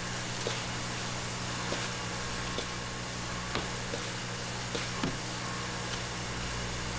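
Steady mechanical hum and hiss of a street-food kitchen, with about seven light, irregular clacks on the iron griddle.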